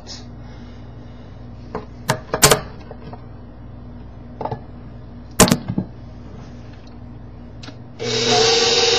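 A few sharp knocks and clinks as flour and salt go into a stainless steel stand-mixer bowl. Near the end the stand mixer's motor starts and runs steadily with a hum, mixing in the flour.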